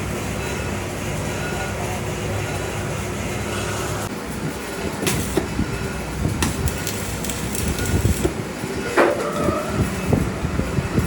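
A steady low machine hum that stops about four seconds in, followed by irregular knocks and clatter with a few sharp strikes.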